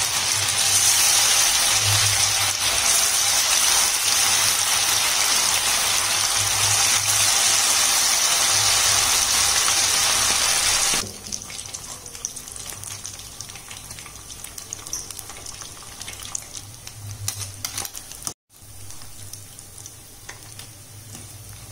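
Masala-coated anchovies deep-frying in hot oil: a loud, steady sizzle that drops abruptly to a quieter sizzle with small crackles about eleven seconds in, as the fish turn golden brown. A brief cut to silence near the end.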